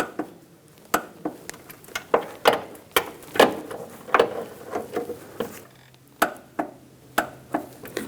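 Torque wrench ratcheting as the door hinge bolts are tightened: a string of sharp metallic clicks and knocks, irregularly spaced, a few a second.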